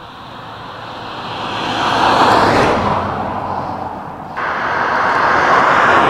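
Road traffic passing close by: tyre and engine noise of a vehicle swells to a peak and eases off, then a second vehicle's noise comes in suddenly and rises again.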